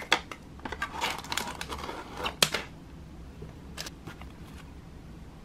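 Paper and thin cardboard being handled: a folded paper insert and sticker sheet are pulled out of a small cardboard box, with rustling and crisp clicks that end in a sharp snap about two and a half seconds in, then a few light taps.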